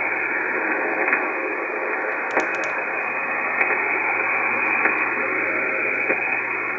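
Reuter RDR54 communications receiver giving out a steady, muffled hiss of band noise in lower sideband on the 40-metre band, tuned between stations with no signal. A few faint static clicks come through about once a second.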